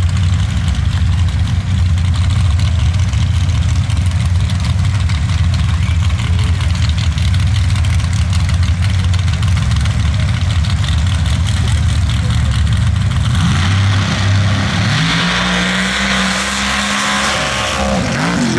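Two modified dirt drag racers' engines idling loud and low at the start line, then launching about fourteen seconds in at full throttle: the engine pitch climbs and holds, with a rush of noise, through the run of under three seconds.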